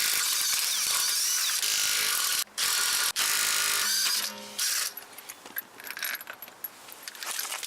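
A power tool runs loud and steady in three bursts, spinning off the wheel nuts, then stops about four and a half seconds in. A scatter of small clicks and knocks from the nuts and tool follows.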